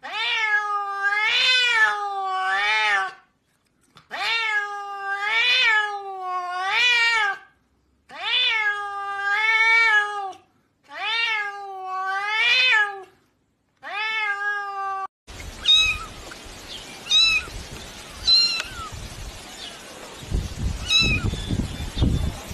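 A white-and-grey cat meowing over and over as a hand pats its head: about eleven loud meows in quick runs of two or three, each rising and falling in pitch, for about fifteen seconds. Then the sound cuts to outdoor background noise with a few short chirps and, near the end, a low rumble.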